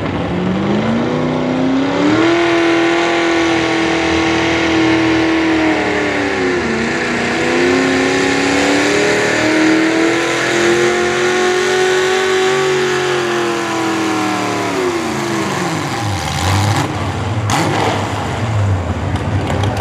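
Hot rod pulling tractor's V8 engine at high revs under full load, dragging a weight-transfer sled. The revs climb over the first two seconds, sag briefly and recover about seven seconds in, then fall away about fifteen seconds in, with a single sharp crack shortly after.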